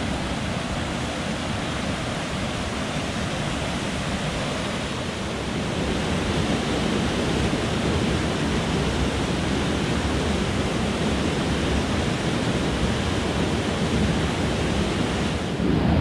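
Steady rushing of Snakepit Falls, a small waterfall on the Amnicon River, and the rapids below it, growing a little louder about six seconds in.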